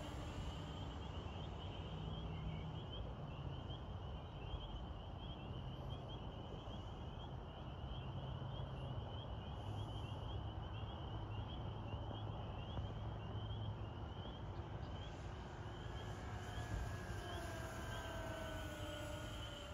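Electric motors and three-blade propellers of a radio-control B-25 Mitchell model in flight. The whine falls in pitch as the plane passes at the start, fades while it is far off, and returns with shifting pitch near the end as it flies close again. Insects chirp rapidly throughout over a low rumble.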